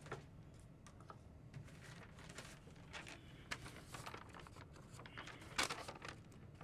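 Someone rummaging for lost papers: faint, scattered rustling and light clicks of things being handled, with a louder bit of rustling near the end.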